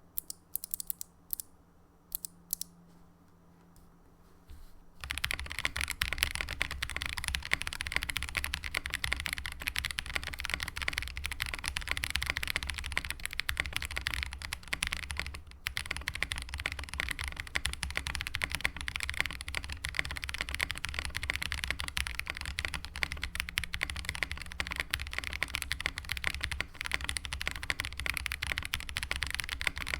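Mechanical keyboard being typed on: a Meletrix Zoom TKL with lubed Gazzew Boba U4T tactile switches and GMK Shoko keycaps. A few separate keystrokes come first, then fast continuous typing begins about five seconds in, with one short pause partway through.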